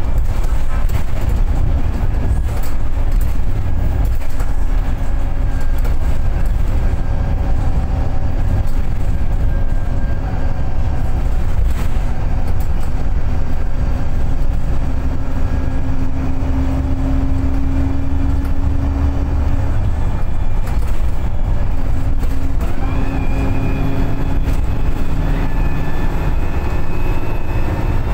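Onboard sound of a VDL SB200 Wright Pulsar 2 single-deck bus under way: the diesel engine's steady drone over road rumble. The engine note falls away about two-thirds through, then a rising whine comes in near the end as the bus picks up speed.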